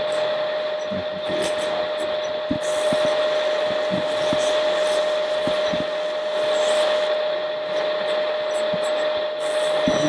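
Electric drive motors and gearing of radio-controlled model construction machines running with a steady high whine, over scattered light knocks.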